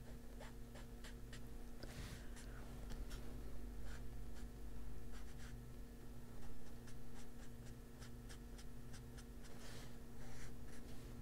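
Foam-padded ink blending tool dabbing and rubbing ink onto a paper colouring page: a run of soft, irregular taps and short scrubs on paper.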